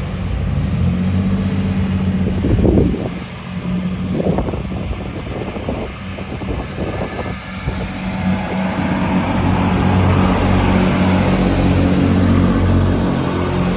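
Class 158 diesel multiple unit pulling out of the station, its underfloor diesel engines droning steadily under load and growing louder in the second half.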